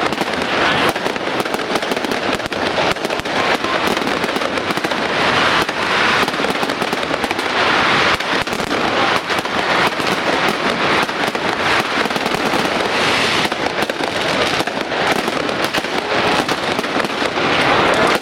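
Fireworks going off in quick succession: a continuous barrage of bangs and crackling.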